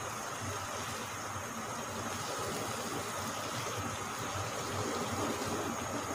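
Steady hiss and low hum of kofte and masala cooking over a high gas flame in a nonstick pan while a spatula stirs them.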